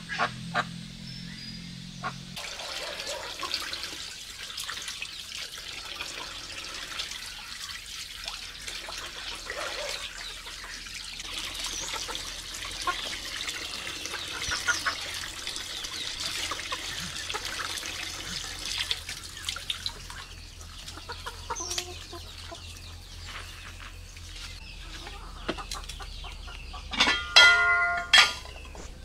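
Water pouring into a plastic basin and splashing as hands wash plucked poultry, with a steady hiss of running water. Near the end, poultry call loudly twice in quick succession.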